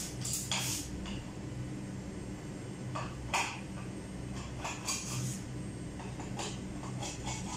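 Scattered metallic clinks and scrapes of a hand tool on the bolts of an electric scooter's seat mount as the seat is taken off, over a steady low hum.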